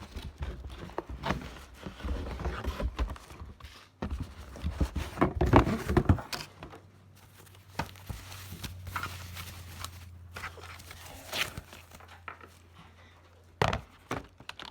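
Keyboard packaging being opened and handled: irregular knocks, thunks and rustles of cardboard and plastic. A low steady hum comes in about six seconds in.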